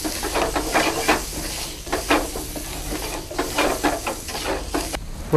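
Chicken and vegetable pieces sizzling in a nonstick frying pan while a wooden spatula stirs them: a steady frying hiss with irregular scraping strokes of the spatula.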